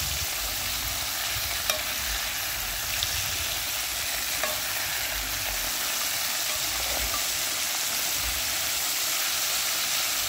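Chicken pieces deep-frying in hot oil in a pot, a steady sizzle. A metal fork turning the pieces taps the pot three times early on, faint clicks.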